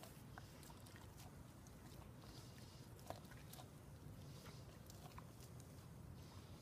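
Newfoundland dog nibbling corn kernels off the cob: faint, irregular crunching clicks of teeth on the kernels, one a little louder about three seconds in.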